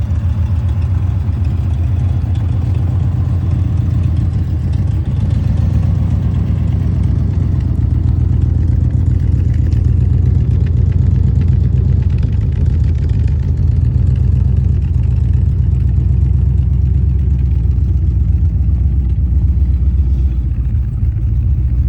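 1978 Chevrolet Corvette's L-82 350 V8 idling steadily with a deep, even exhaust pulse, still warming up after a start.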